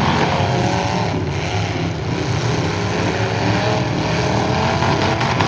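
Demolition derby stock trucks' engines revving hard, a loud continuous rumble whose pitch wavers up and down as the drivers work the throttles.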